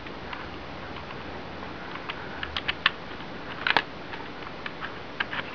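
Irregular plastic clicks and taps of computer keys and hands working the keyboard hardware, with a quick cluster of sharper clicks about halfway through.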